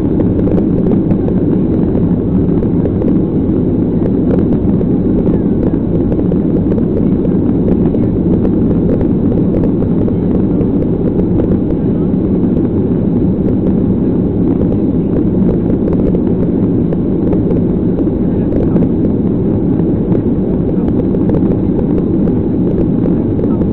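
Steady engine and airflow noise of a Boeing 737 heard inside the passenger cabin during the climb after take-off, an even low rumble that does not change.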